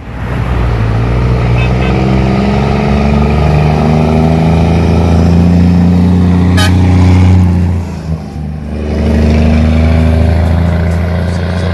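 A motor vehicle's engine running loud and steady. It drops off briefly about eight seconds in, then picks up again. A short sharp click comes just before the drop.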